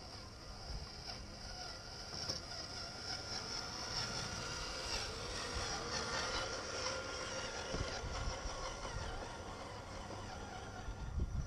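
Electric motor and gear whine of scale RC crawler trucks driving over gravel, with tyres crunching. It is loudest about halfway through as one truck passes close. A gusty low rumble of wind is on the microphone.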